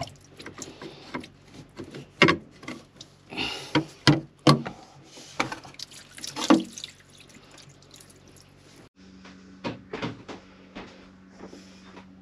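Water poured into a sailboat engine's raw-water strainer housing, in two pours a couple of seconds apart, among knocks and clicks of handling the strainer. The strainer has been found clear of debris. About nine seconds in the sound changes abruptly, and a few knocks follow over a faint steady hum.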